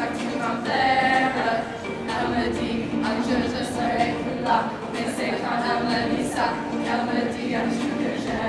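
A group of voices singing a French pop song in unison, with music behind them.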